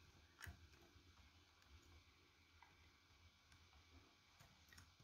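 Faint, sparse clicks of keys being typed on a computer keyboard, a handful of separate keystrokes over near silence.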